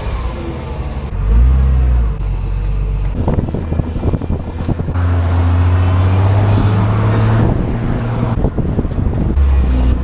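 1990 Jeep Cherokee XJ engine and road noise while driving, the engine note rising and falling with the throttle and holding steady for a few seconds in the middle, with a spell of rattling knocks about three to five seconds in. The engine is running rough after years of sitting, just restarted on rebuilt fuel injectors.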